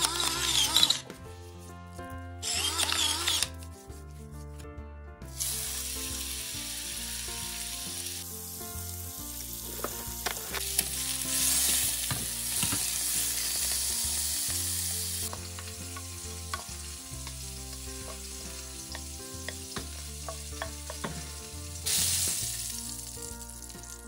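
A pepper mill grinding in two short bursts, then a tenderloin searing in hot oil in a nonstick frying pan: steady sizzling, strongest in the middle, with small clicks of tongs turning the meat. Faint background music underneath.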